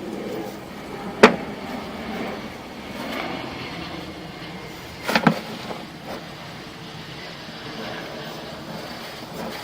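Sewer inspection camera's push cable being fed up a cast-iron drain line: a steady rattling rumble with two sharp knocks, one about a second in and one about five seconds in.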